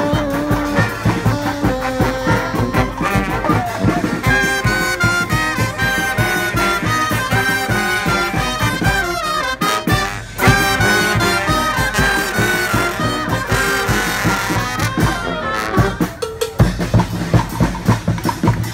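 Street brass band playing: trumpets and trombones carrying the melody over a drum kit and percussion. About ten seconds in there is a short break, then a loud hit as the band comes back in. Near the end the horns thin out and the drums carry a steady beat.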